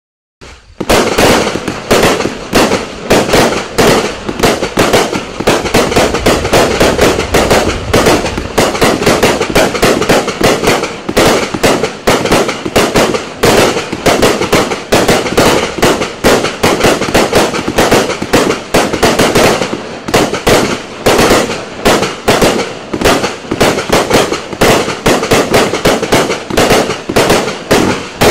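Happy Family 'Double Trouble' 120-shot, 1000-gram firework cake firing: a rapid, unbroken barrage of shots and aerial bursts, several a second, starting about half a second in.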